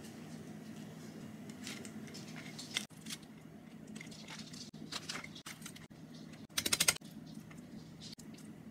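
Metal fork scraping and tapping on crusty toast as mashed avocado is spread over it, with a quick rattling scrape a little before the end as the tines are raked across the crust. A low steady hum runs underneath.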